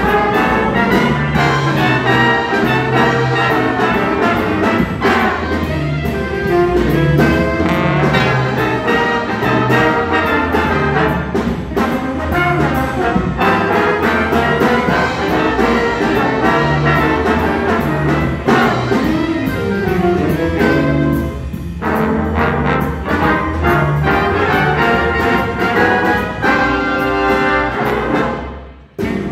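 A jazz band's section of five trombones plays together in parts over a steady bass line. Near the end the sound drops out abruptly for a moment.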